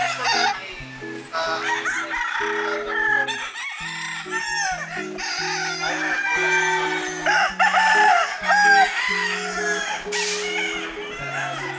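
Many gamecocks crowing over and over, with hens clucking among them, over background music with held notes.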